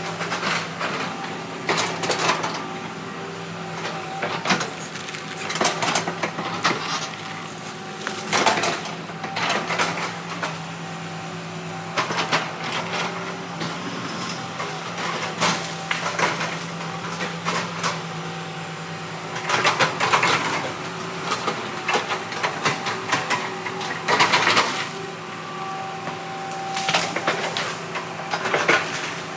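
Heavy diesel machinery running steadily, with repeated metallic clanks and knocks and several louder clattering bursts spread through.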